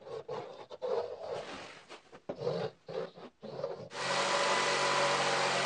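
A pencil in a wooden trammel scratches across plywood in short, uneven strokes as a circle is scribed. About four seconds in, a jigsaw starts and cuts steadily through the plywood, much louder than the scribing.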